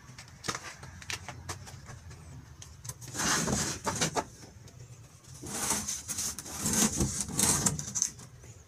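Plywood sheets being shifted and pulled out of a stack: wood scraping and rubbing with light knocks, in two longer stretches about three seconds in and from about five and a half seconds to near the end.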